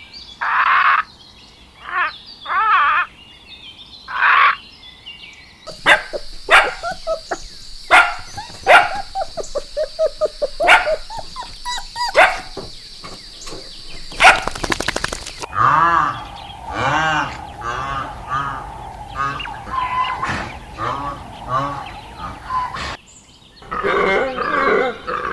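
A string of animal calls from several different clips cut one after another. First come short separate calls, then a stretch of rapid sharp clicks and calls over a steady high whine, then a run of repeated pitched calls, with barking-like calls among them.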